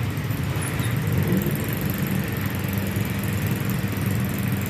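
Road traffic: a vehicle engine running steadily as a low rumble, a little louder about a second in.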